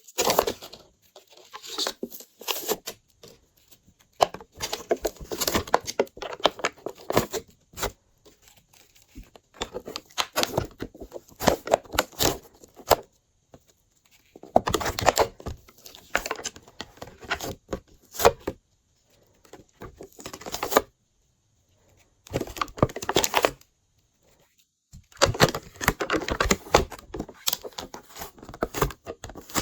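Glossy slime being squished and kneaded by hand, with bursts of sticky clicking and crackling pops and short pauses between the bursts.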